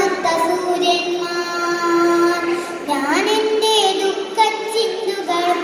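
A girl's solo voice reciting a Malayalam poem in a sung, melodic style, holding long steady notes, with a rising glide about three seconds in.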